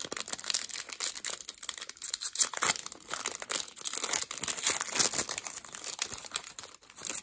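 Foil wrapper of a football trading-card pack crinkling and crackling in the hands as it is pinched at the crimped seal and torn open.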